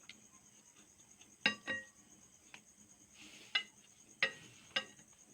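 Tableware clinking during a meal: about five light, sharp clinks, two close together about a second and a half in and three more in the second half. A steady high-pitched trill runs underneath throughout.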